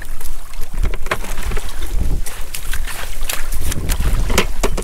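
Wind rumbling on the microphone in heavy rain, with many irregular sharp taps throughout.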